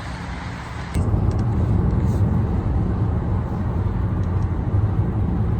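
Car driving: a steady low road and engine rumble heard from inside the cabin, which gets abruptly louder about a second in.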